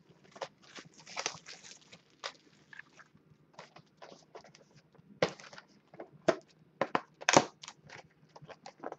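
Plastic shrink-wrap crinkling and a cardboard trading-card box being handled and opened by hand: irregular crackles and rustles, with a few sharper snaps about five, six and seven seconds in.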